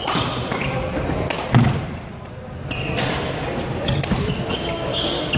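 Badminton doubles rally on a wooden sports hall floor: rackets hitting the shuttlecock, shoes squeaking and feet thudding as players move, with the loudest sharp hit about a second and a half in.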